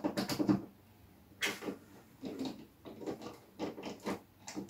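A light fitting and its wires being worked into the hole in a plaster ceiling rose: a string of about six short scrapes and rubs, the loudest right at the start.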